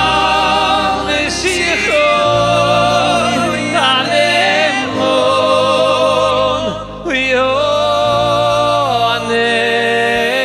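Several voices singing a Hebrew Shabbat table song (zemer), holding long notes with vibrato, over a band's sustained low accompaniment.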